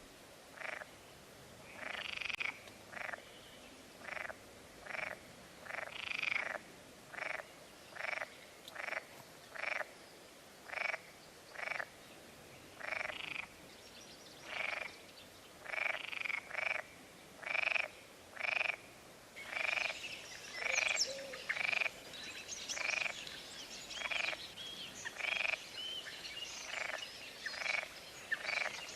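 Frogs croaking, short calls repeating about once a second. Higher bird chirps join in about two-thirds of the way through.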